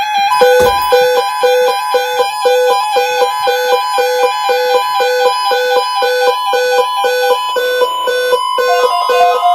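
Electronic music: a repeating pattern of short synthesized beeps, a low note about two and a half times a second alternating with a higher note, with higher notes above that change about eight seconds in.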